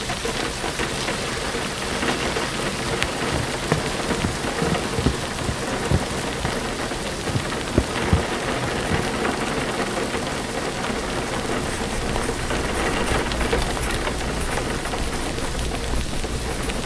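Steady rainfall, with a few sharper single drop hits standing out in the first half. A low rumble comes up about two-thirds of the way through.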